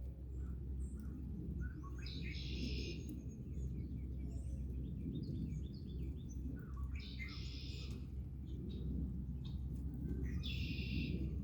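A songbird singing the same short song three times, about four seconds apart, each song a few quick notes running into a buzzy trill about a second long. A steady low rumble runs underneath.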